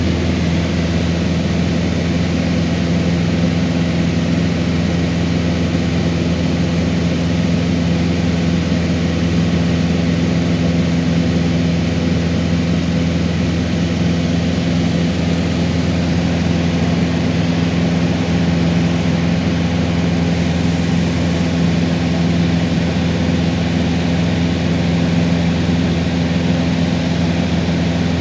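Cessna 150's Continental O-200 four-cylinder engine and propeller droning steadily in flight, heard from inside the cabin, with a constant low hum and a rushing hiss of air.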